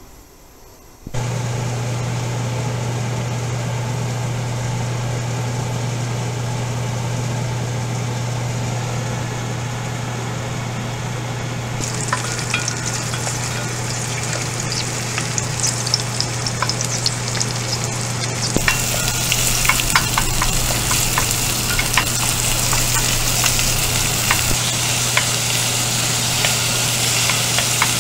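Garlic and then onion, carrot and chili sizzling in hot oil in an enamelled pot, stirred with a wooden spoon, with crackling pops. The sizzle starts about a third of the way in and grows louder past the midpoint, over a steady low hum that begins about a second in.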